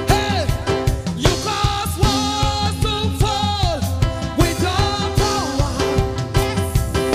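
Live gospel worship song: a woman lead singer and backing singers singing over a band with drum kit and percussion, at a steady beat.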